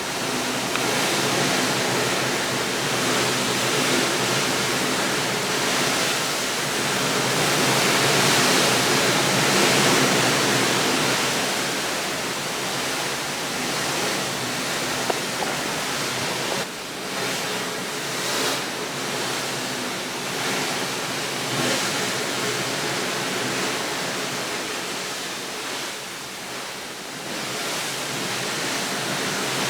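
Steady rushing noise with no distinct events. It swells slowly to a peak about a third of the way in, then eases off, with a couple of brief dips in the second half.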